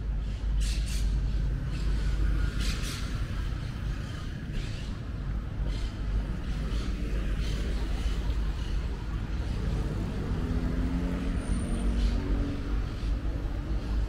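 Street traffic: motor vehicles running along the road, with a steady low rumble and an engine's tone passing through from about ten seconds in.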